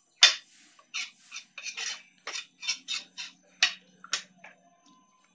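A ladle scraping and knocking against the sides of an aluminium pressure cooker while stirring a thin, watery gravy. It makes about a dozen irregular clinks and scrapes, the loudest just after the start.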